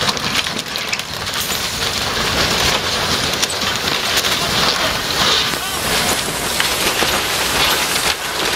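Truck sliding and tumbling down a snowy, wooded slope, a steady crackling and rustling of snow and brush with no single big impact.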